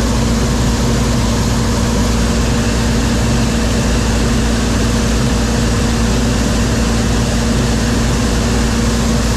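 John Deere 4400 combine running steadily, its engine and threshing machinery making a constant drone with a steady hum.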